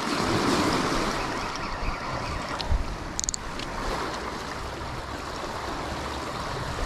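Sea surf washing steadily, with a few brief clicks about three seconds in.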